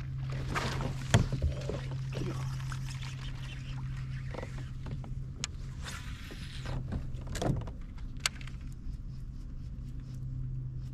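Fishing rod and reel worked from a kayak: a cast with line hissing off the reel and the reel being cranked, with sharp knocks against the hull, the loudest about a second in. A steady low hum runs underneath.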